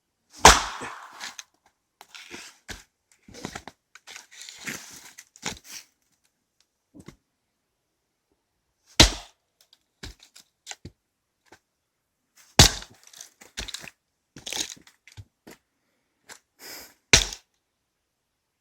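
Firewood being split with an axe: four loud, sharp cracks as the blade strikes and splits the logs, a few seconds apart, with lighter knocks and clatter of wood between the blows.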